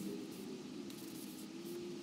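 A cloth rag wiping and rubbing the sanded surface of canvas Micarta sheets, a soft, steady rubbing hiss. A low steady hum runs underneath.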